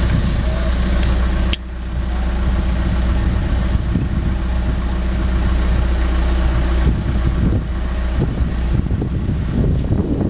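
John Deere compact excavator's diesel engine running steadily under the hydraulic load of lifting a long timber beam. There is a sharp click about one and a half seconds in, and the engine note shifts about seven seconds in.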